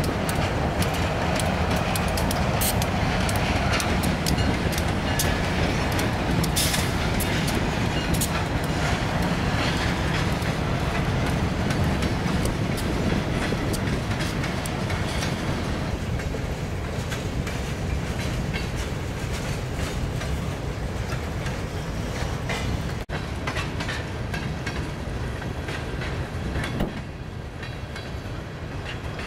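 Freight train passing: a pair of EJ&E EMD SD38-2 diesel locomotives go by with their engines running, then the freight cars roll past with a steady clickety-clack of wheels over the rail joints. The engine rumble is strongest in the first half and thins out later.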